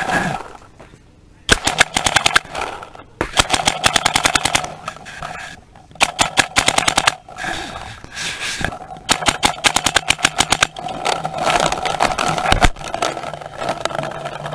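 Paintball markers firing rapid strings of shots in about five bursts of one to two seconds each.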